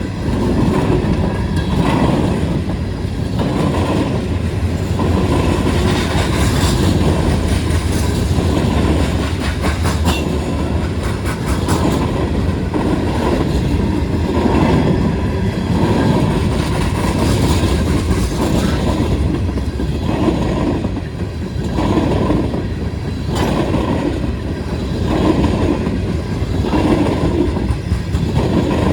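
Freight train cars rolling past at speed, their wheels clattering rhythmically over the rail joints under a steady rumble.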